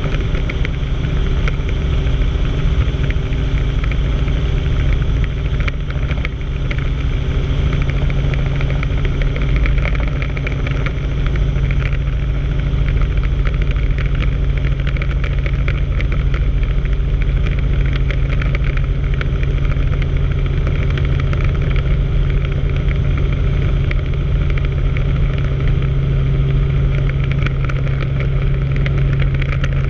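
Helicopter in flight heard from inside the cabin: a steady, loud drone of engine and rotor, with a constant low hum and unchanging pitch.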